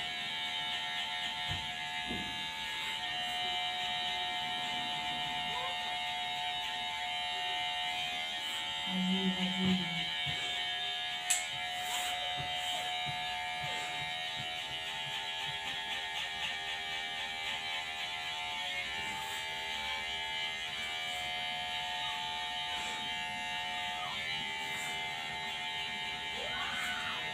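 Electric hair clippers running steadily, buzzing as they trim a man's short hair.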